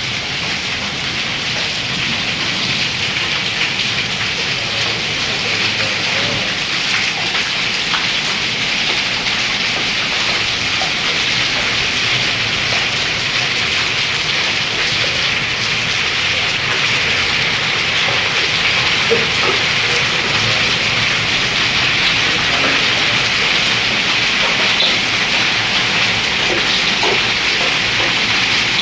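Heavy rain mixed with hail pelting a concrete courtyard floor: a steady, dense hiss full of small ticks from the stones striking.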